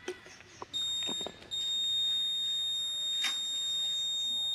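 Buzzer of a student-built Arduino fire alarm sounding a steady, high-pitched alarm tone: its fire sensor has set it off. The tone starts under a second in after a few small clicks, drops out briefly, then holds steady.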